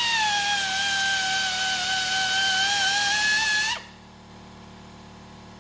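Air-powered 3/8-inch belt sander running with a high whine over a rush of air hiss, its coarse belt grinding down a weld, the pitch wavering slightly as it is pressed on. It cuts off abruptly a little under four seconds in.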